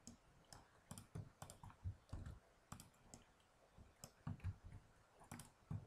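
Faint, irregular clicks of a computer keyboard and mouse as keyboard shortcuts are pressed and points are clicked on screen.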